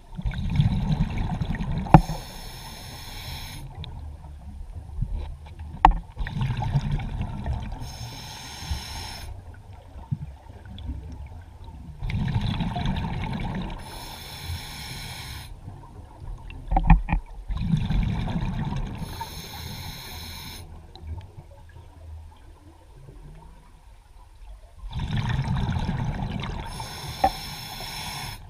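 Scuba diver breathing through a regulator underwater: five breaths about every five to six seconds, each a low bubbling rumble followed by a high hiss.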